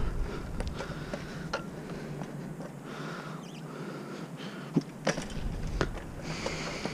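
Bicycle rolling slowly on asphalt: a faint tyre hiss with scattered, irregular clicks and rattles from the bike.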